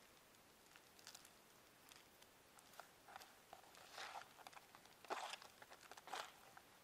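Hands stirring a pile of cashew worm larvae on a large fresh leaf: a string of short, irregular rustles and crinkles of the leaf, faint, the loudest around four to six seconds in.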